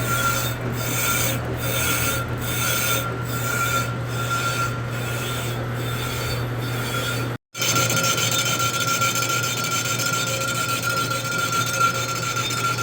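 Lathe facing the friction face of a truck clutch pressure plate: a steady scraping cut over the machine's motor hum and a steady high tone. The cut pulses about once a second for the first half, breaks off briefly about halfway through, then runs on evenly.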